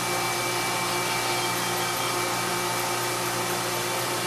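Mori Seiki NT3200 multi-tasking CNC turning center running with its chuck spindle turning. It gives a steady machine hum: several constant tones over an even hiss, at an unchanging level.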